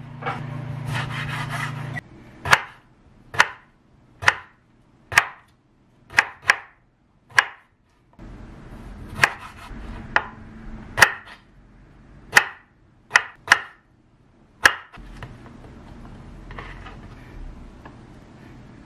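Chef's knife chopping washed kimchi on a wooden cutting board: about fourteen separate sharp knocks, roughly one a second, some in quick pairs. Near the end there is softer rubbing as the cut pieces are scooped off the board onto a plate. A brief steady noise fills the first two seconds.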